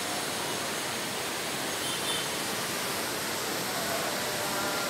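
The Thamirabarani River in flood, its swollen water rushing in a steady, even roar.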